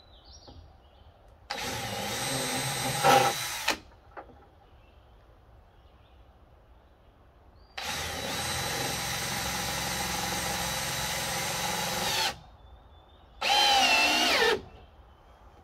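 Cordless drill running in three bursts, a short one, a long run of about four seconds and a brief last one whose pitch wavers, driving screws into a wooden frame.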